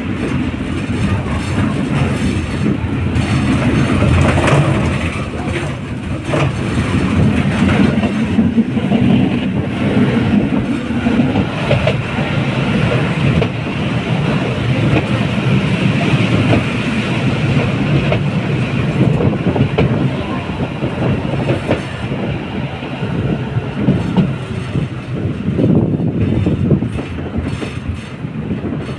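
Tram riding along its tracks, heard from inside the car: a steady rumble of wheels on rail, with occasional clacks as the wheels pass over joints.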